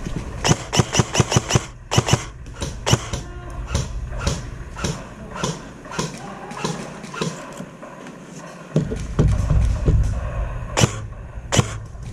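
Airsoft gunfire: many sharp shots, some fired singly and some in quick strings of several, over steady low rumble.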